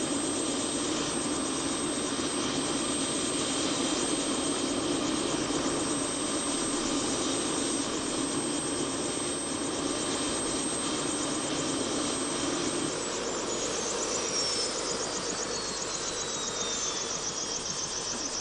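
Bell 206 JetRanger helicopter's turbine engine running on the ground with the main rotor turning: a steady, dense engine and rotor noise. About two-thirds of the way in the low part thins out and a high turbine whine glides down in pitch.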